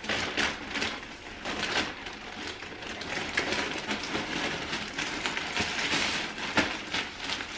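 Thin plastic mailer bag crinkling and rustling in a rapid, irregular crackle as hands pull and tear at it to get it open.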